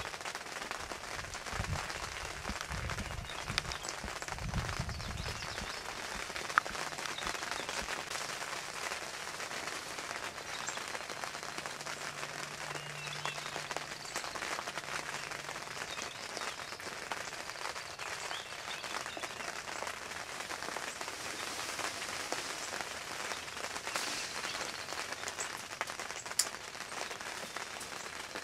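Steady rain falling, with many small drop ticks, and a brief low rumble in the first few seconds.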